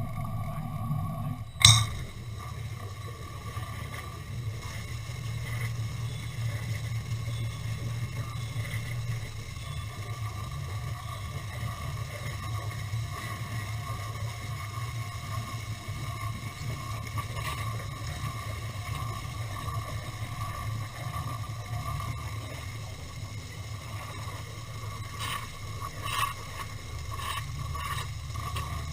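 Steady low mechanical hum with a faint steady tone above it, one sharp knock about two seconds in and a few light clicks near the end.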